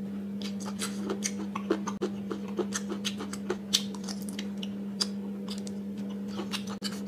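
A person chewing crisp stir-fried pork tripe close to a clip-on microphone: irregular, wet crunching clicks, over a steady low hum.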